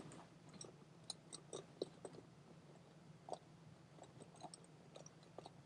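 Near silence with scattered faint clicks and taps from the plastic valve and pump-hose fittings of an inflatable kayak being handled, over a faint steady low hum.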